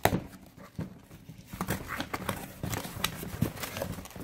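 Small cardboard shipping box being opened by hand: flaps pulled and bent back, with irregular light taps, knocks and scrapes of cardboard.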